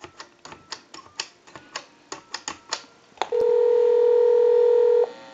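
A touch-tone telephone keypad being dialed: a quick run of about a dozen short touch-tone beeps, each with a button click. Then a click and a steady ringback tone on the line for about two seconds, which cuts off as the called number answers.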